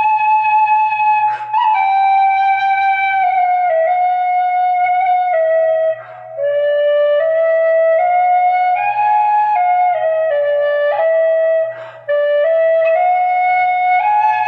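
Celtic flute played solo, a slow melody moving note by note in small steps, with brief breaks for breath about six and twelve seconds in.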